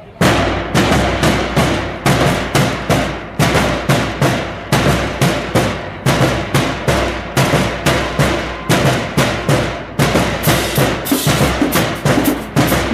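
Marching band drumline of snare drums, bass drums and cymbals playing a fast cadence. All come in together at once.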